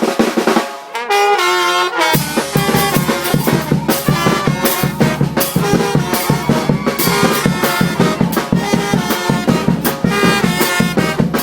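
Cumbia band music led by brass: a trumpet and trombone line opens alone, then bass and drums come in about two seconds in and the full band carries on with a steady beat.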